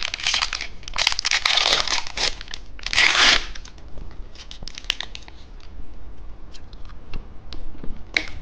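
Plastic wrapper of a cheese stick snack crinkling and being torn open. Three noisy rips in the first three and a half seconds, the third the loudest, then lighter crinkles and clicks, with one more short rustle near the end.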